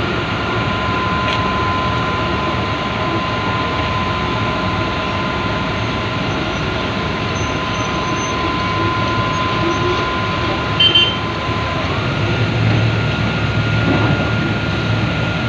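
Heavy machinery running steadily, a constant noise with a thin whine over it that shifts slightly in pitch near the end.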